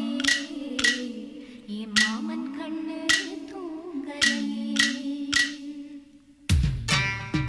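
Tamil film song: a single sung vocal line, almost unaccompanied apart from sharp percussive taps. Just before the end it dips for a moment, and then the full band comes in with a heavy low beat.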